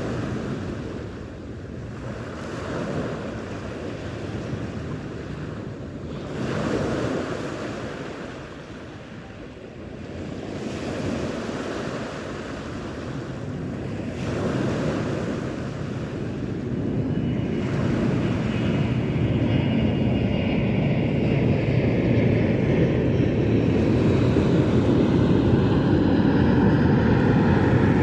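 Sea waves washing ashore, the noise swelling and falling back every few seconds, with wind on the microphone. From about halfway through, a steady engine-like rumble with a faint whine grows louder and covers the surf.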